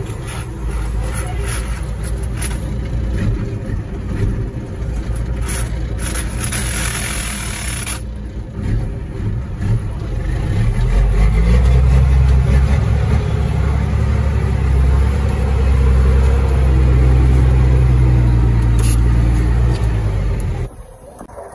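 A 1999 Ford Sterling truck's Caterpillar 3306 diesel engine running, with a steady low drone that grows louder and heavier about halfway through. The sound cuts off abruptly near the end.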